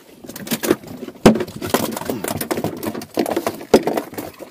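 A rapid, irregular run of knocks and taps, with two heavier thumps, one about a second in and one near the end.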